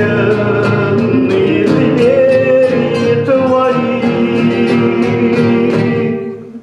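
Bard song: a man singing to a strummed acoustic guitar. The sound drops away near the end.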